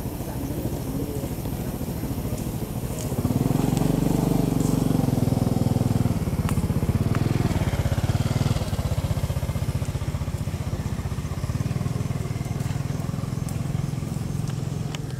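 An engine running at a steady pitch, louder between about three and eight seconds in.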